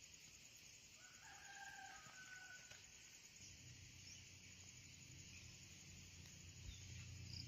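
Near silence with one faint, distant bird call about a second in, lasting about a second and a half. A faint low hum comes in about midway.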